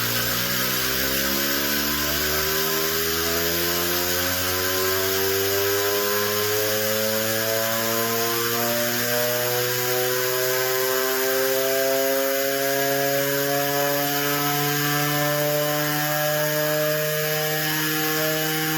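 S-28 electromechanical civil-defence siren winding up, its wail climbing slowly and smoothly in pitch over a steady hiss.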